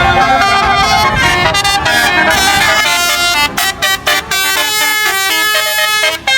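Bus telolet horn, a multi-tone air horn, playing a quick melody of short stepped notes, broken by a few brief gaps from about three and a half seconds in, over the bus engine running.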